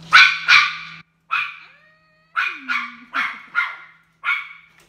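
A dog barking: about eight short, sharp, high-pitched barks in quick, irregular succession.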